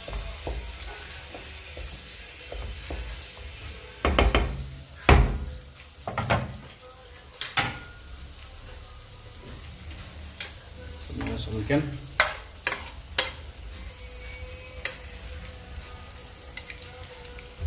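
Fermented soybean mixture sizzling in a steel kadai over a gas flame while a wooden spatula stirs and scrapes it. Several sharp knocks and clinks of utensils against the pan and a plate come about 4 to 5 seconds in, and again through the middle and near the end.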